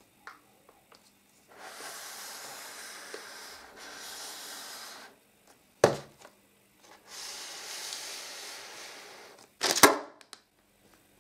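Cardboard product boxes set down on a small table: one sharp knock about six seconds in and a second, doubled knock near the end. Between them is quieter shuffling and rustling of someone moving about.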